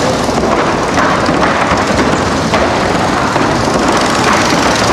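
Motorcycle engine running loud and steady inside a wooden Wall of Death drum.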